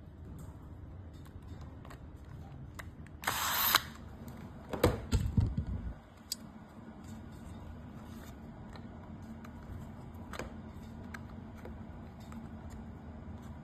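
Small mechanical clicks and rattles of parts being handled, with a short hiss just after three seconds in and a run of heavier knocks around five seconds in.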